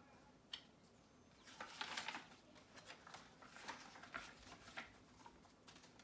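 Soft paper rustling and small clicks of a picture book's pages being handled and turned: a click about half a second in, then rustles around two seconds in and again around four seconds in.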